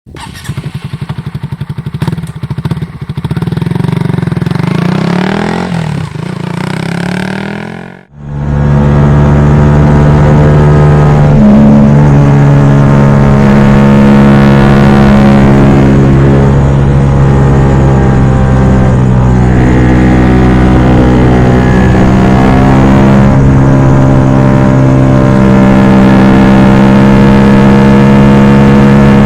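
Honda CB125R single-cylinder engine running through a LeoVince LV One Evo exhaust, its note shifting for the first several seconds. It drops out sharply about eight seconds in, then holds a loud, steady drone at constant pitch.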